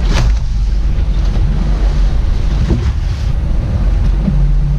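Boat at sea, its engine a steady low rumble, with wind noise on the microphone and the wash of waves.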